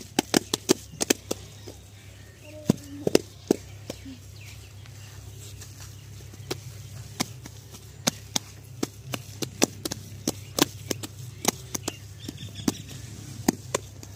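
Hands slapping and patting wet cow dung, shaping it into dung cakes. It comes as a string of sharp, wet slaps, quick at first, sparse for a few seconds in the middle, then quick again.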